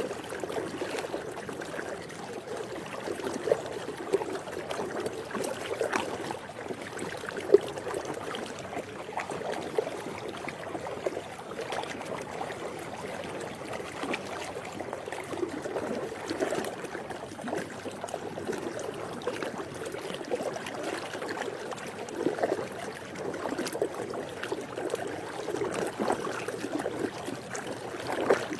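Swimming pool water lapping and trickling steadily, with small sharp splashes and drips now and then; the sharpest comes about seven seconds in.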